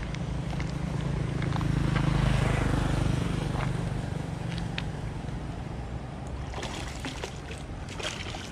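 A motor vehicle's engine running steadily, swelling to its loudest about two to three seconds in and then fading as it passes. In the second half, a few sharp clicks and light splashes at the water.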